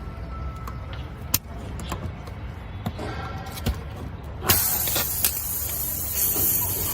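A few sharp clicks and knocks over a low rumble, then about four and a half seconds in a loud, steady hiss of air that cuts off suddenly near the end, as air blows during a car tyre puncture repair.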